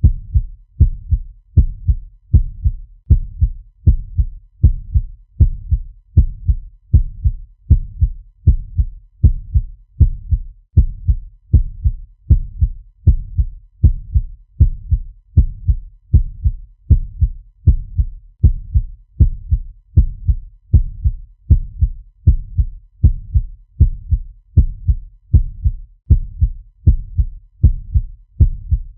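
Fast heartbeat sound effect: low, muffled thumps repeating in an even, unbroken rhythm of about one and a half beats a second.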